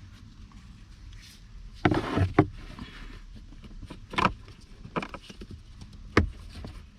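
Plastic scrapes and knocks as a cabin air filter and its housing parts are handled and slid into place behind a car's glove box: a scraping cluster about two seconds in, then a few single sharp knocks.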